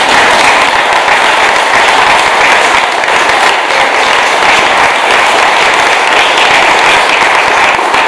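An audience applauding: many hands clapping, dense and even.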